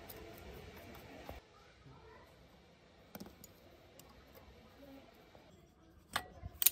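Sharp metal clicks from hand tools working on a rusty children's bicycle frame and fittings as it is taken apart: a single click about three seconds in, then two louder ones near the end.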